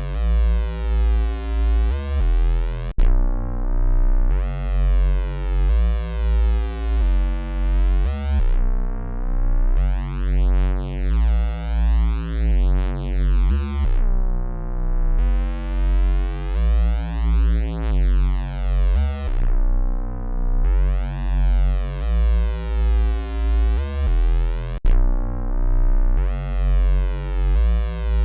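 Looped electronic bass line at 88 beats per minute: deep, overtone-rich bass notes that change every couple of seconds, with a filter sweeping their brightness up and down. The sound briefly drops out twice, about three seconds in and near the end.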